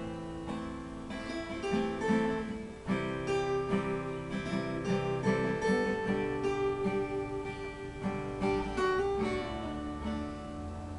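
Acoustic guitar playing the instrumental intro of a song, strummed and picked chords.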